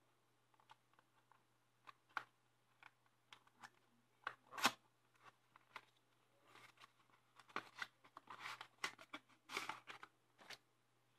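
Cardboard box and plastic packaging being handled and slid apart: irregular scrapes, taps and crinkles, with one sharper sound about four and a half seconds in and a busier run of rustling in the second half.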